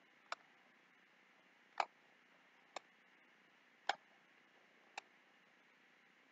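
Computer mouse clicking: five short, separate clicks about a second apart over faint room hiss.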